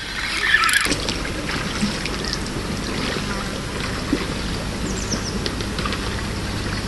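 Steady rushing, splashing water noise that comes up about a second in and holds.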